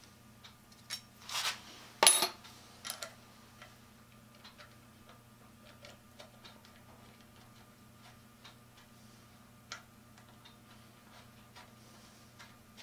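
Metal clatter about one to three seconds in, the loudest just after two seconds, then scattered small clicks of a socket ratchet working a nut on a treadle grinder's linkage.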